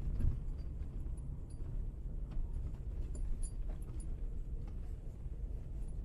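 Steady low rumble inside a Toyota Tacoma pickup's cab as the truck slides and rolls down a snow-covered hill, with a few faint ticks and creaks.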